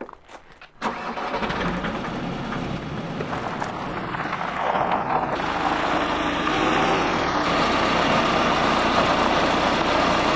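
Ford Transit van engine starting about a second in, then running, getting louder about halfway through as the van is moved.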